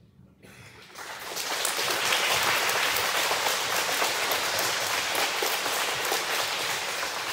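Large crowd of schoolchildren applauding: the clapping starts about half a second in, swells to full strength within a second or so, and carries on steadily.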